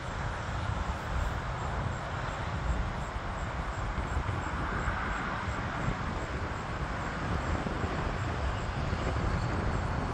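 Twin-engine jet airliner passing high overhead: a steady, broad jet-engine rush that swells a little about halfway through, over a low rumble.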